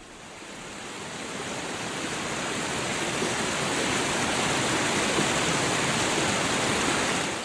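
Rushing river water, whitewater pouring over rocks in a steady rush that fades in over the first few seconds and cuts off suddenly at the end.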